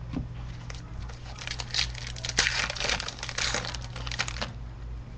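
Foil wrapper of a trading-card pack crinkling and tearing as it is opened: about three seconds of dense crinkling, starting about a second and a half in.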